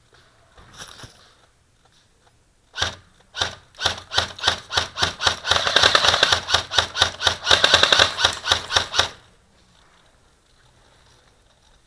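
Airsoft rifle fired close by in a quick run of single shots, starting slowly about three seconds in and then coming about four or five a second for several seconds before stopping.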